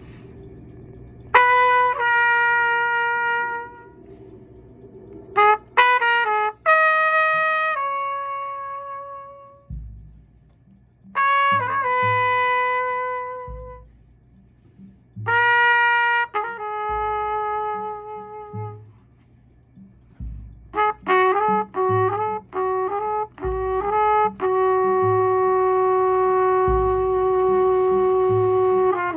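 Trumpet playing short phrases of held notes, separated by pauses, then a quick run of notes that ends in a long held note. Soft low thumps sound every few seconds under the later phrases.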